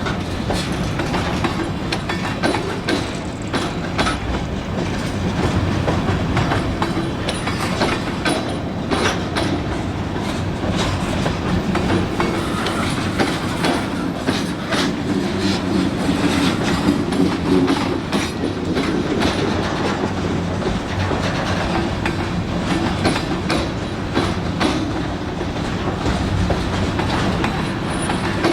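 Union Pacific freight train rolling past, a steady rumble of railcars with the wheels clicking and clacking over the track.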